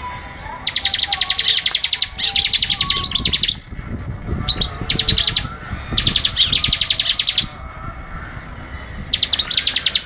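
Bar-winged prinia (ciblek) singing: fast trills of sharp, high, rapidly repeated notes in bursts of about a second, separated by short pauses, with a longer lull shortly before the end.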